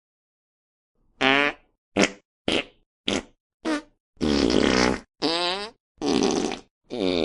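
A string of fart sound effects: after about a second of silence, five short farts roughly half a second apart, then four longer, wobbling ones, the last still going at the end.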